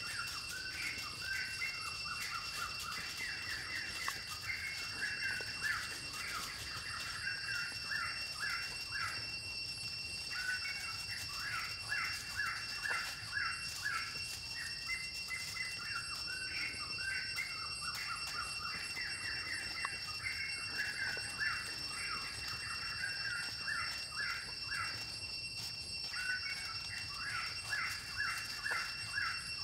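Birds singing, short chirping phrases repeated with brief pauses, over a continuous high-pitched insect drone.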